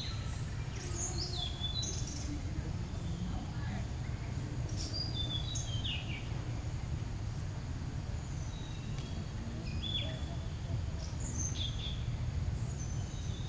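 Outdoor ambience: a steady low rumble with scattered short, high bird chirps that slide downward in pitch, a few seconds apart.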